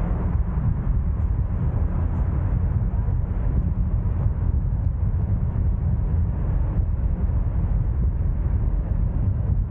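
A steady low rumble with an even hiss above it, unchanging throughout, with no distinct events.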